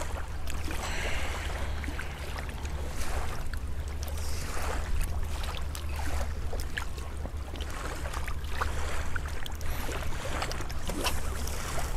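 Riverbank ambience: a steady low wind rumble on the microphone with water lapping and scattered small clicks and ticks.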